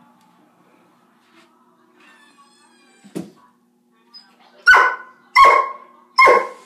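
Doberman barking three times in quick succession, loud, about two-thirds of a second apart, near the end.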